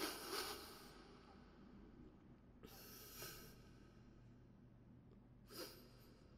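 A man's faint, close-miked breaths and sniffs, three in all, the first the loudest, taken during a long pause in a slow, emotional Quran recitation.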